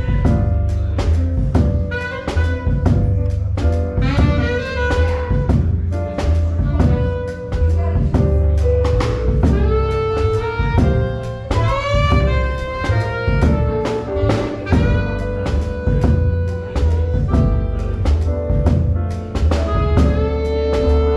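Live small jazz combo playing a 6/8 blues: a saxophone melody line over upright bass and drum kit with cymbal strokes.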